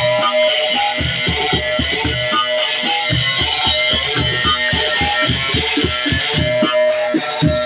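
Instrumental music: a plucked string instrument playing over a quick beat of low strokes.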